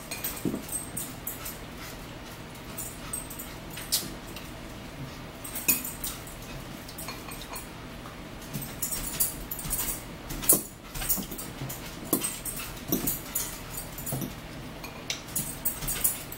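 Metal forks clinking and scraping against a ceramic salad bowl and plate in irregular sharp clicks, with a few short, low, whine-like sliding sounds now and then.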